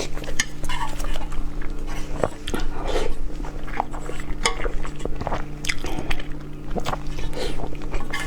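A person biting and chewing food close to the microphone, with irregular crunches and wet mouth clicks, over a steady low hum.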